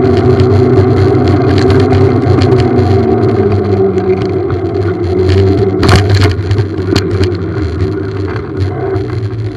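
Motorbike engine running with a steady hum, its pitch dropping a little as the rider slows, over constant rattling clicks. A louder jolt comes about six seconds in, and the sound eases off after it.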